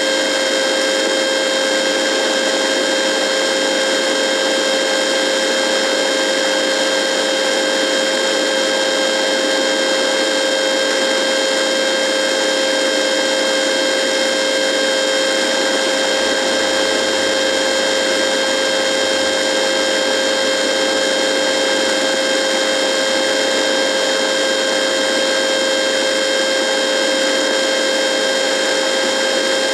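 Radio buzzing: a steady electrical buzz and hiss with a strong hum tone and several fainter higher tones, unchanging throughout.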